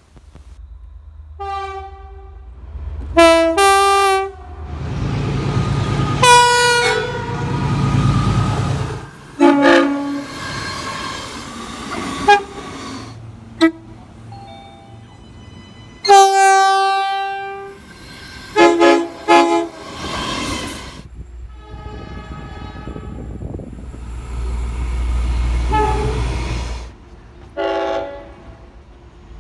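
Train horns blowing a series of short and longer blasts from several different trains. The low rumble of trains rolling past lies between the blasts.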